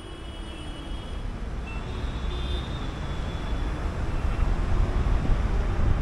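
Moving car's road and wind noise on a bonnet-mounted camera: a low rumble with a noisy hiss, growing steadily louder.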